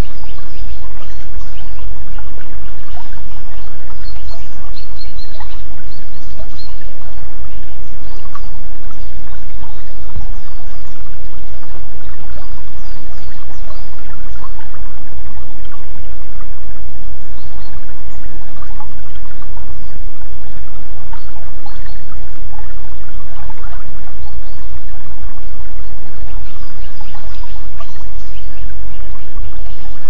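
Running water, like a brook or stream, with birds chirping now and then over it. Recorded through a Samsung S5610 phone's built-in microphone.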